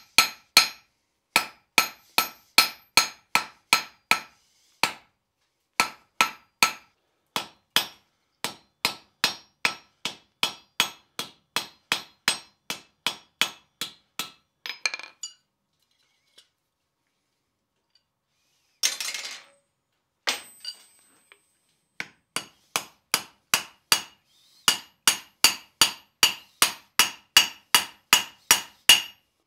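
Hand hammer striking a red-hot iron rod on a steel anvil in quick runs of about three ringing blows a second as a nail is forged: first the point is drawn out, then the head is hammered in a nail header. About halfway through there is a pause of a few seconds, broken by a short rasping noise.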